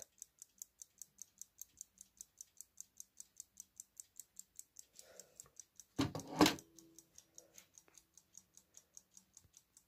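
Platform escapement of a 1960s Kieninger mantel clock movement ticking, quick, light and even at about five ticks a second. Two louder knocks come about six seconds in.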